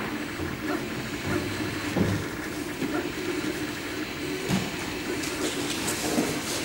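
MakerBot 3D printer running a print: a steady hum from its extruder fan and stepper motors, with a few small irregular knocks.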